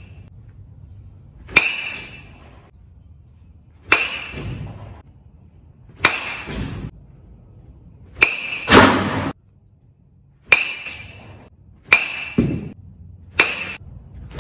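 Metal baseball bat striking balls off a batting tee, a sharp ringing ping about every two seconds, around seven hits in a row, some followed by a softer knock as the ball hits the cage netting.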